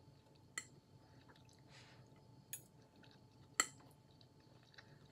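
A metal fork clinking against a dinner plate while eating: a few short, separate clinks, the loudest about three and a half seconds in.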